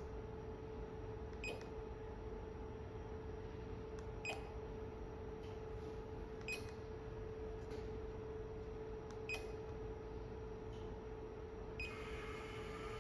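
A steady electrical hum with a short click and brief beep repeating about every three seconds.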